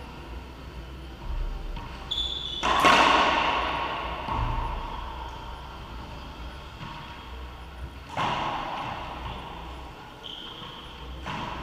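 Racquetball rally: the ball cracks off racquet and walls with a long echo in the enclosed court, loudest about three seconds in, again about eight seconds in and near the end. Brief high sneaker squeaks on the court floor come before the first and last hits.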